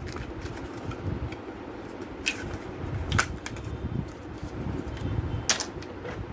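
A RAM stick being handled and fitted into a motherboard's memory slot: three sharp clicks over a steady low hum.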